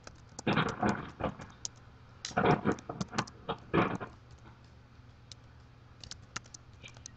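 Computer keyboard typing: quick runs of key clicks, heavier and denser in the first four seconds, then lighter scattered taps.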